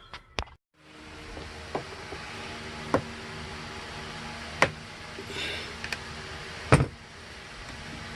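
Scattered sharp knocks and clicks of hand tools on wood, with a short scrape partway through, as rotten framing is pried and pulled apart over a steady background hum.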